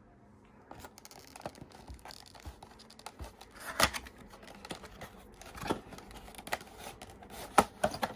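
A scale model airliner being unpacked from its box: scraping and rustling of the packaging, with scattered sharp clicks and taps, the loudest near the end.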